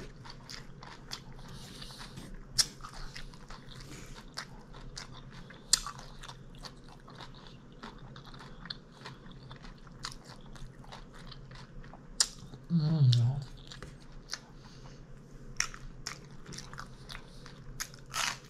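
Close-miked eating: a person chewing and crunching mouthfuls of food, with many small wet mouth clicks and crackles throughout. About two-thirds of the way through comes a short hummed sound from the eater.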